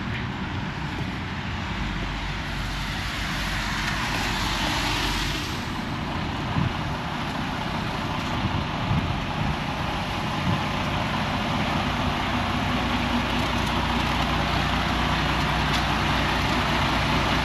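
Semi-truck diesel engine running steadily under a constant rushing noise, gradually getting louder.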